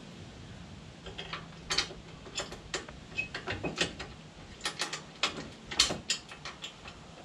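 Irregular sharp metal clicks and clinks of bolts and bumper hardware being handled and started by hand into the mounting points.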